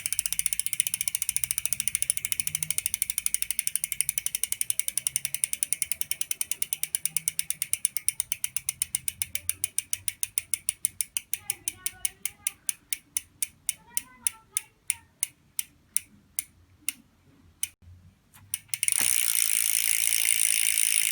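Crankbrothers Cobalt 1 rear hub's 3-pawl steel freehub clicking as the wheel coasts. A fast buzz of pawl clicks slows to separate ticks and dies away, then starts again fast and loud near the end.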